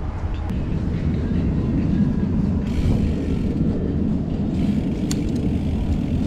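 Steady low rumble of a bicycle rolling at speed: wind buffeting the action-camera microphone together with tyre noise on asphalt and then on brick pavers.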